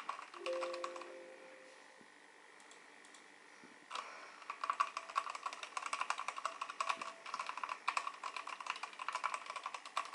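Rexus Legionare MX10 mechanical keyboard with linear red switches being typed on: a short run of keystrokes at the start, a pause, then fast continuous typing from about four seconds in.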